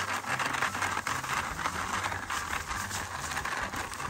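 Small wooden hand cart rattling and scraping as it is dragged along a sandy path, a steady crackly noise full of small clicks.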